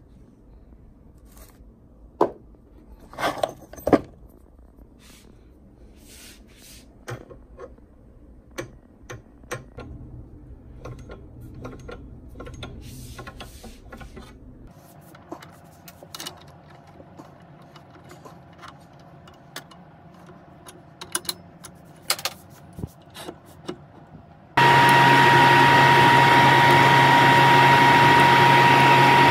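Metal tools clattering and clicking as they are handled in a wooden drawer and fitted to a lathe chuck, then about 25 seconds in a Nova Comet II midi lathe starts and runs with a loud steady whine while a drill bit in the tailstock bores into the spinning pen blank.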